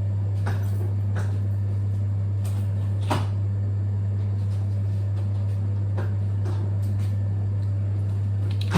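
A steady low hum, with a few light knocks and clicks of things being handled in a room, the sharpest about three seconds in and another near the end.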